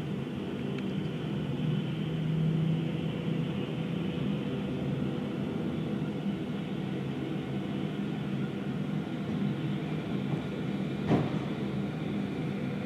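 Aircraft engines running with a steady drone that holds several steady tones, swelling slightly about two seconds in. A single sharp click comes near the end.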